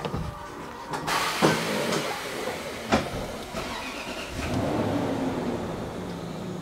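A few knocks, the sharpest about three seconds in, then the L322 Range Rover's V8 engine is started: a short crank about four and a half seconds in that catches and settles into a steady idle near the end.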